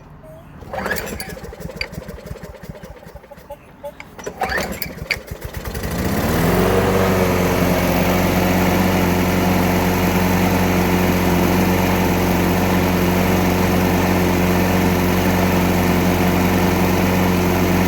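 Craftsman Platinum 7.25 push mower's 190cc Briggs & Stratton single-cylinder four-stroke engine being cranked a couple of times, catching about six seconds in, rising in speed and settling into a steady run. It starts and keeps running after carbon has been cleaned off the piston and valves, the no-start fault it had been suspected of (a stuck exhaust valve) now cured.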